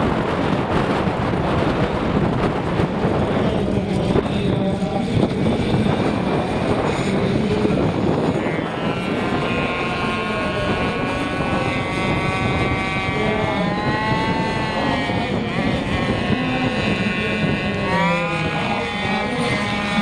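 Petrol engine and rotors of a large gasser RC helicopter (Wiplash Gasser, about 1.7 m rotor) running as it takes off and flies, over a heavy rushing of strong wind on the microphone. From about nine seconds in a high engine-and-rotor whine comes through as a stack of tones whose pitch sways up and down as the helicopter manoeuvres.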